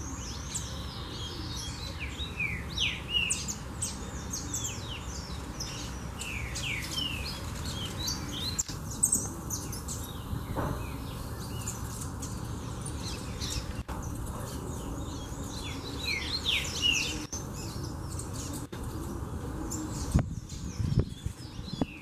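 A flock of saffron finches and seedeaters calling: many short, high chirps overlapping, several sliding downward, thinning out for a few seconds midway, over a steady low background noise.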